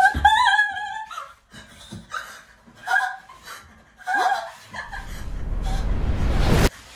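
A woman screaming, then crying out in short panicked gasps and whimpers. About two-thirds of the way in, a rising noise swell builds steadily louder and cuts off suddenly near the end.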